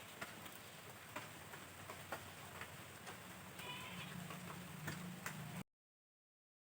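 Faint scattered ticks and clicks over quiet room tone, with a faint low hum about four seconds in. The sound then cuts off to dead silence at an edit near the end.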